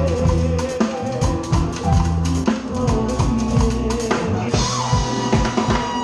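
Live band playing a Latin dance number, with the drum kit up front: a steady stream of kick, snare and cymbal hits over bass and held melody lines. It is the band's stage monitor mix, heard from the drummer's position.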